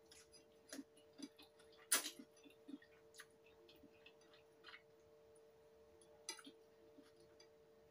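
Scattered soft clicks and taps of a fork and spoon against a bowl while noodles are eaten, the sharpest about two seconds in, over a faint steady hum.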